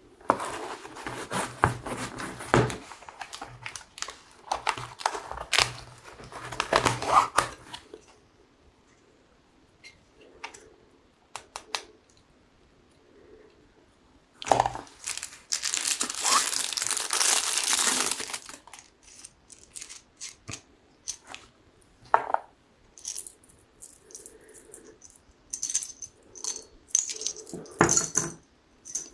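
Packaging being opened by hand: bursts of crinkling and tearing over the first eight seconds and again from about fifteen to eighteen seconds in, with scattered short clicks and light knocks in between and near the end.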